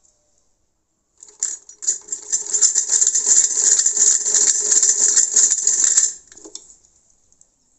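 Hand-cranked Brother sewing machine stitching: a fast, even clatter of the needle mechanism that starts about a second in and stops about six seconds in.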